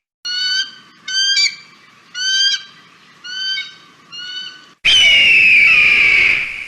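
Kite calls: five short, shrill calls about one a second, then from about five seconds in a long, loud call that slides slowly down in pitch.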